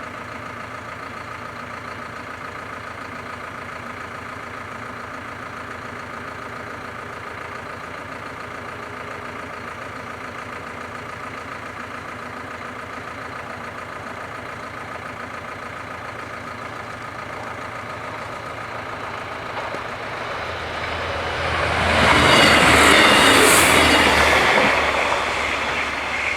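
DB Class 628 diesel multiple unit passing over the level crossing. It grows louder over the last third, is loudest a few seconds before the end, then falls away, over a steady hum that runs throughout.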